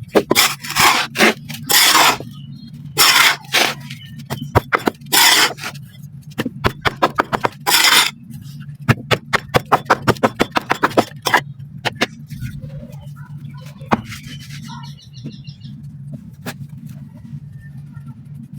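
Black sand being scraped and crumbled: a series of loud gritty scraping rushes, then from about six seconds a quick run of crunchy crackles, then quieter scratching. A steady low hum runs underneath.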